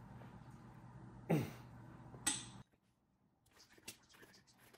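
A man's short grunt, falling in pitch, about a second in, then a sharp huff of breath, as he strains to force a stuck, badly bent pushrod out of the engine. After an abrupt cut, faint light clicks of metal being handled.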